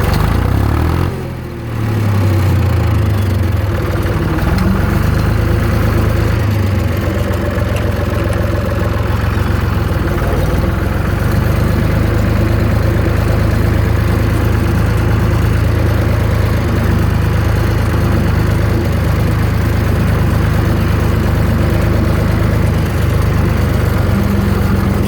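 Zetor 3320 farm tractor's three-cylinder diesel engine running steadily, easing off briefly about a second in and then picking back up.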